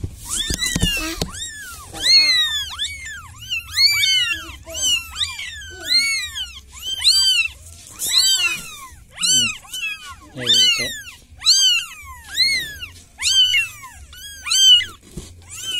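Newborn tabby kittens, eyes still closed, mewing over and over in high-pitched cries that rise and fall in pitch, about one and a half a second. These are a young kitten's distress calls for help.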